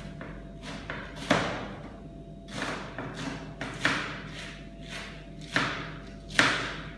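Kitchen knife chopping cabbage on a cutting board: irregular strokes, a few of them much harder than the rest, each hard stroke with a short echo.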